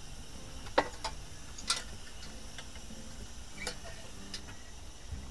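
A few light clicks and taps of tinplate toy-truck parts being handled and fitted together, the two sharpest about a second and just under two seconds in.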